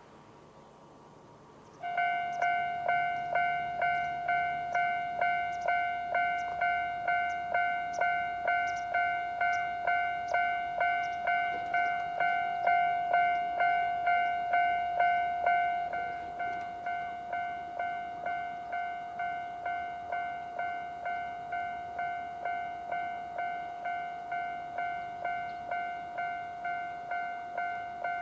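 A Japanese railway level crossing's electronic warning bell starts about two seconds in and rings steadily at about two strikes a second. Each strike is a bright ringing tone with overtones. Its volume drops partway through and stays lower, as these crossing alarms do once the barriers are down.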